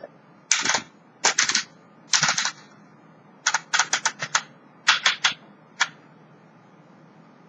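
1940 Remington Quiet Model 1 manual typewriter being typed on: type bars striking in quick clusters of keystrokes. The typing stops about six seconds in.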